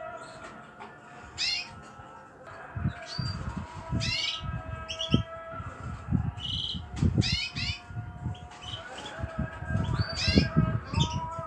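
Small caged birds calling over and over: many short, sharp, rising chirps, some overlapping, with low thumps and rustling from the cage underneath.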